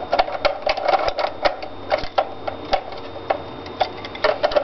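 Plastic back plate of an airsoft P90 being jiggled and pressed into the gun's body: a quick, irregular run of hard plastic clicks and knocks, several a second.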